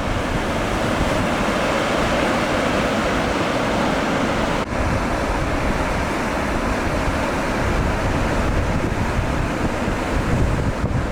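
Sea surf washing steadily onto a beach, with wind buffeting the microphone in a low rumble.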